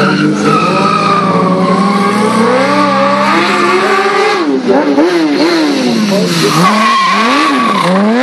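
Sport bike engine revving up and down during circling stunt riding, with tyre squeal from the rear tyre on asphalt. In the second half the engine pitch swings up and down in quick throttle blips.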